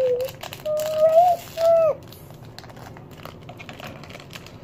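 Rapid small clicks and crinkles of small plastic toy pieces and foil wrappers being handled. In the first two seconds a child makes three short wordless hummed sounds.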